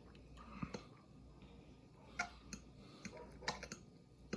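Faint, scattered clicks and taps of someone eating: cutlery against a plate, a few irregular clicks spread across a few seconds.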